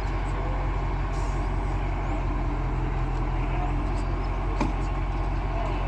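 Heavy machine's engine running steadily with a low hum, and one sharp click about four and a half seconds in.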